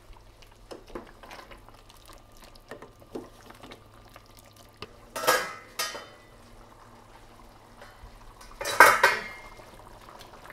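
Wooden spoon stirring chicken in tomato sauce in a stainless-steel pan, with soft scrapes and taps, two sharp knocks a little past the middle, and a louder clatter near the end as the pan's glass lid is handled.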